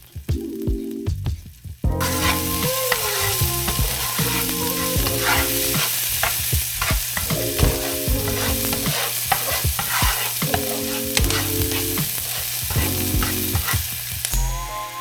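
Food sizzling in a hot pan while being stirred, with a utensil clicking and scraping against the pan; the sizzle starts suddenly about two seconds in.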